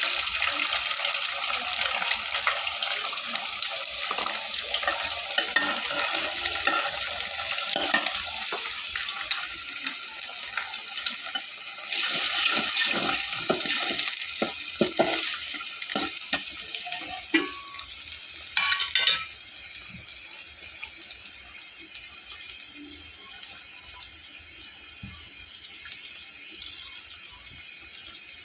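Running water with scattered knocks and clatters; the water grows clearly fainter after about twenty seconds.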